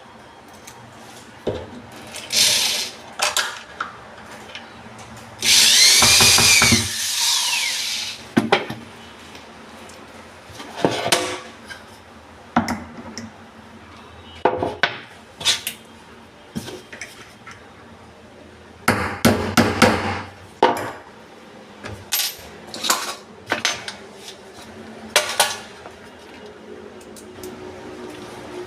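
A handheld power tool's motor running in short bursts, with a longer run about five and a half seconds in that whines up and winds down, among sharp knocks and clatter of wood being worked.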